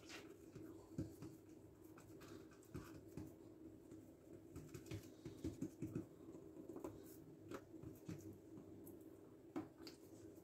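Faint, soft pats and taps of hands folding and pressing squares of dough on a wooden board, over a low steady hum.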